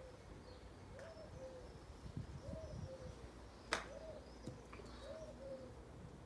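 A pigeon cooing over and over, a short two-note phrase, the second lower, about every one and a half seconds. About halfway through, a single sharp click of a golf club striking a ball on a chip shot.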